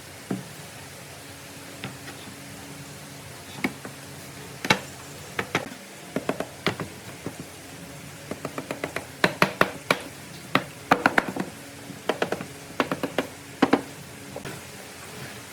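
Irregular wooden knocks and taps, scattered at first and then in quick clusters through the middle and latter part, as pieces of wood are handled and tapped together. A faint low steady hum runs underneath.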